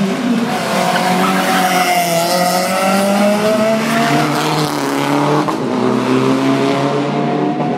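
Rally car engines revving up and down through gear changes as the cars drift round a tight corner, with tyres squealing; one pitched engine note rises and falls several times.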